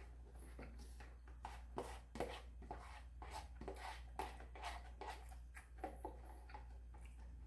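Close-miked eating sounds: chewing with a run of irregular short, crisp clicks and crunches, over a steady low electrical hum.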